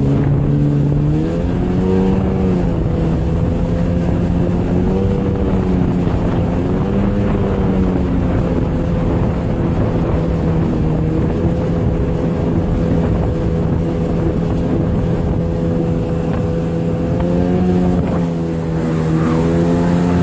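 Jet ski engine running at speed, a steady drone that dips and rises in pitch several times as the throttle is eased and opened again.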